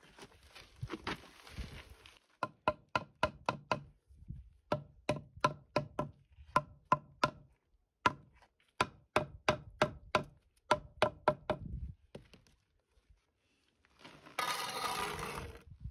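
Rubber mallet tapping a concrete block down into its mortar bed: three runs of quick knocks, about three a second. Near the end a steel trowel scrapes the squeezed-out mortar off the joint.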